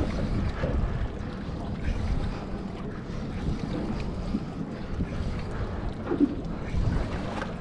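Wind buffeting the microphone over a steady wash of sea water against a drifting boat's hull, with a low rumble and no distinct events.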